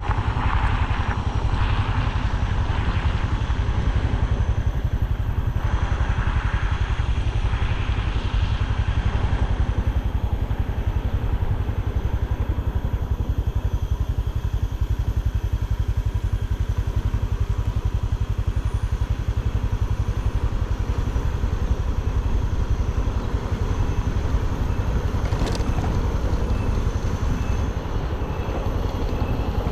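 Motor scooter riding along: a steady engine drone mixed with a heavy, even low rumble.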